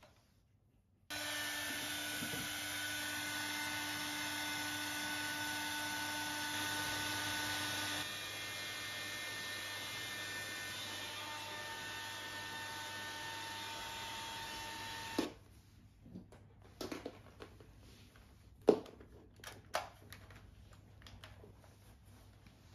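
Hand-held hair dryer running steadily with a motor whine, switched on about a second in and cut off suddenly about 15 seconds in. A few soft knocks and handling clicks follow.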